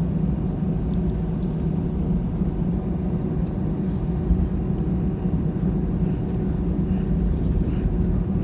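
Jet airliner's engines heard from inside the cabin: a steady low rumble with a faint even hum, holding level as the plane taxis.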